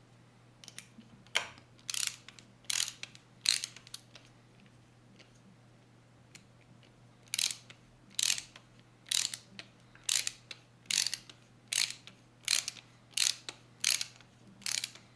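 Working Bosch ratchet clicking as its pawl skips over the teeth on the return strokes: a few clicks, a pause of about three seconds, then a steady click roughly every 0.7 seconds. The clicking is the sign that the ratchet is working normally.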